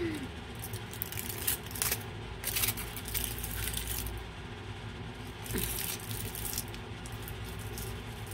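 Aluminium foil wrapper of a Toblerone bar crinkling as it is handled, in short, scattered crackles.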